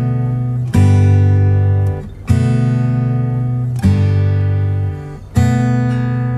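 Background music: acoustic guitar strumming sustained chords, a new chord struck about every second and a half.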